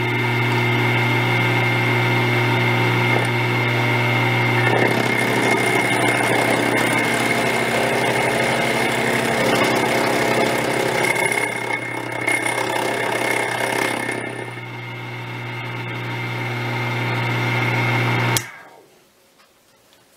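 Emco Compact 5 milling head running, a steady motor hum with a high whine, turning rougher about five seconds in. It is switched off about 18 seconds in, and the hum cuts off sharply.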